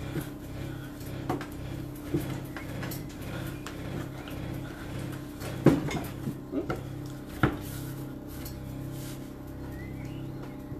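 Scattered dull knocks and light clatter from dough being kneaded by hand on a plastic board, the board bumping on the table under the pressure, loudest a little before six seconds in and again around seven and a half. A steady low hum runs underneath.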